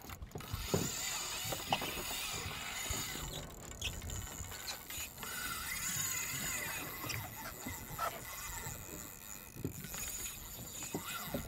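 Wind and sea noise on an open boat, with faint background music underneath.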